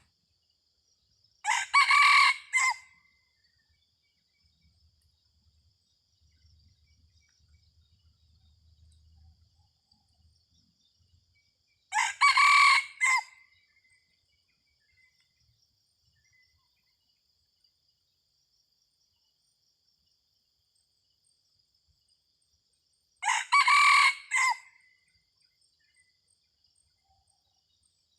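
Red junglefowl rooster crowing three times, about ten seconds apart, each crow short at just over a second. Its crowing is set against a steady high drone of insects.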